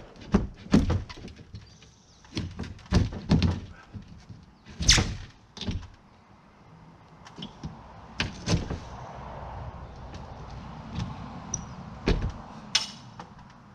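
Hammer blows on nails at a T1-11 wood siding panel: about a dozen sharp knocks at irregular intervals, clustered in the first half and with longer pauses later.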